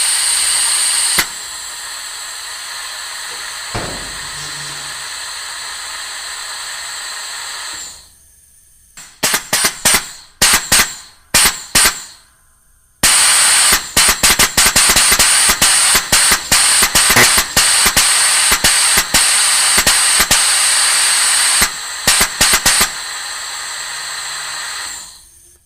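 Air blast sound effect: a steady, loud hiss of escaping air that drops back after about a second. A few short separate bursts of air follow, then a long run of rapid blasts, then a steady hiss again that fades out near the end.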